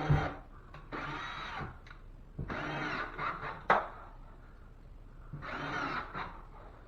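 Cordless drill driving drywall screws into a ceiling patch: four short runs of the motor whirring, its pitch rising and falling each time, with a sharp click about three and a half seconds in.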